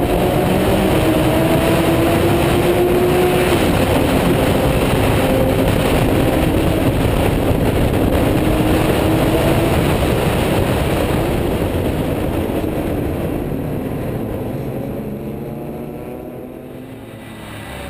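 Porsche 997 GT2 race car at speed, heard from its hood: heavy wind rush over the engine note. The engine rises in pitch under acceleration, drops with an upshift a few seconds in, and the sound gets quieter near the end as the car slows into a corner.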